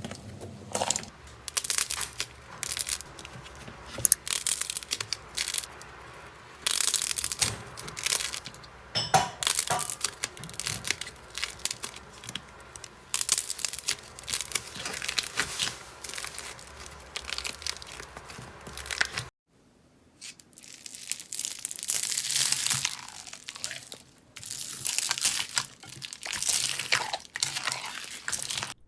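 Slime being squeezed, poked and pressed by hand, in irregular bursts of crackling, clicky squishing. There is a brief break about two-thirds of the way through, then more of the same.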